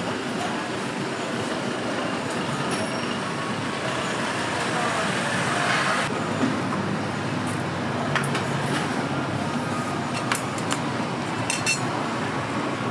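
Steady background din of a busy street market, with a low murmur of voices and a few sharp clinks of metal in the second half.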